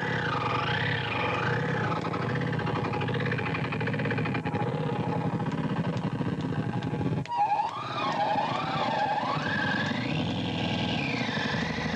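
Loud electronic music with a synth tone warbling up and down over and over, like a siren. It cuts out for a moment about seven seconds in, then comes back.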